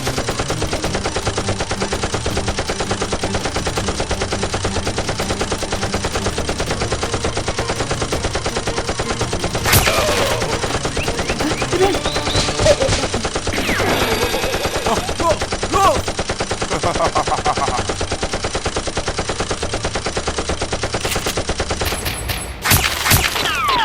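Rapid automatic gunfire in a continuous, even stream of shots, with a few louder hits in the middle.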